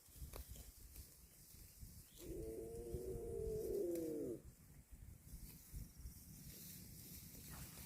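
A cow mooing once, a single call about two seconds long that starts about two seconds in and drops in pitch at its end.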